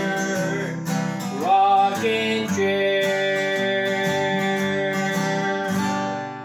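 Acoustic guitar strummed through the closing bars of a song, with a short rising note about a second and a half in. The last chord rings and fades near the end.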